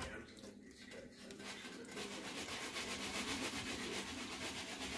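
Wooden spoon stirring and scraping through eggs, tomatoes and meat frying in a skillet. The scraping comes in separate strokes at first, then about two seconds in it turns into a steadier, fuller sizzling scrape.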